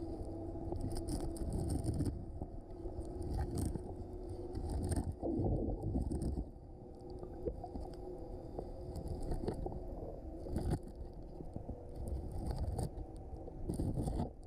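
Underwater noise on a scuba dive: the diver's breathing through the regulator and exhaled bubbles return every few seconds over a steady low rumble.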